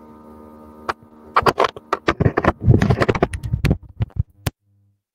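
Electrical buzzing hum from a faulty headset microphone, then a few seconds of irregular crackling and clicks, about a second and a half in.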